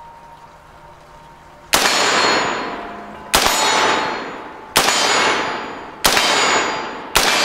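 Five semi-automatic rifle shots from an MGS Firearms Citizen AR-style rifle, fired singly about one to one and a half seconds apart, starting nearly two seconds in. Each sharp crack is followed by a long echo that fades away.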